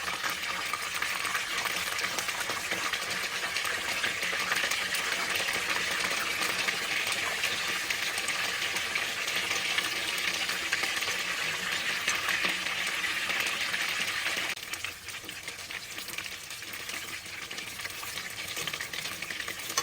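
Cornstarch-coated karaage chicken pieces sizzling and crackling in deep oil at about 190 °C during their second fry. The sizzle grows quieter about three-quarters of the way through.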